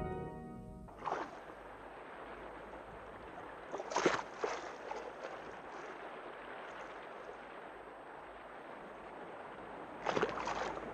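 Organ music fading out at the start, then sea waves washing softly, with a few louder swells of surf.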